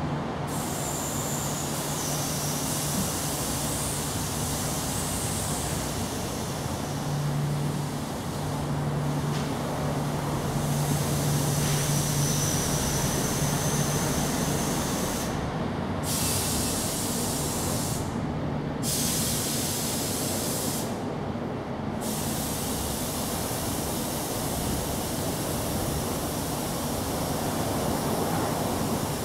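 Steady outdoor background noise with a low engine-like hum of distant traffic, and a high hiss over it that cuts out briefly several times.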